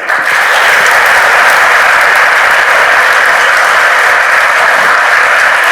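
An audience applauding: steady, dense clapping at an even level.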